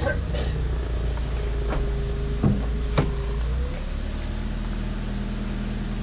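Car engine running at low speed as the car rolls slowly, settling into a steady idle a little past halfway. Two sharp knocks come about two and a half and three seconds in.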